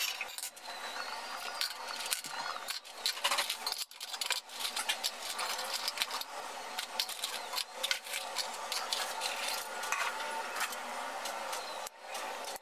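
Lumps of charcoal clinking and rattling as they are picked out of a plastic cup and dropped into an aluminium drink can, in irregular small clicks with some rustling.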